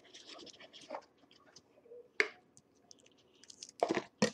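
Speaker packaging being handled and opened: light rustling with sharp clicks or knocks, one about two seconds in and a few more near the end.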